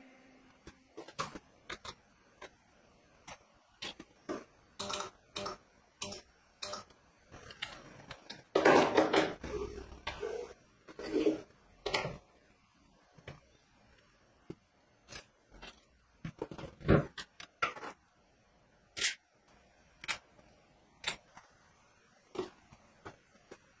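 Scattered clicks, taps and handling noises of small parts on a wooden bench: a power plug is pushed into its socket, and cylindrical lithium-ion cells are set into a plastic cell holder. A denser bout of knocks and rustle comes about nine seconds in.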